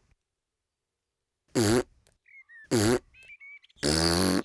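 Cartoon pig voices blowing raspberries with tongues stuck out: three loud, short, sputtering blows, about a second apart.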